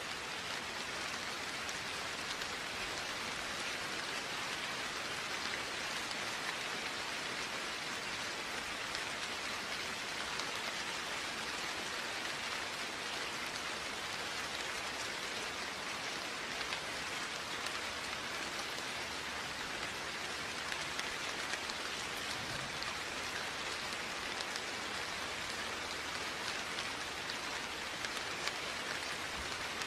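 Steady rainfall: an even hiss of rain with fine patter of drops hitting surfaces, no thunder.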